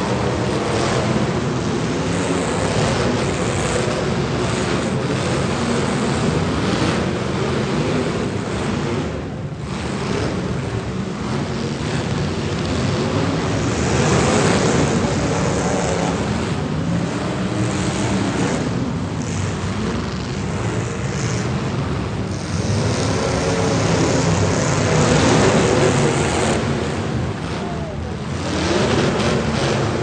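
Several demolition derby cars' engines revving hard and racing at once, their pitch rising and falling as the cars drive at and ram one another.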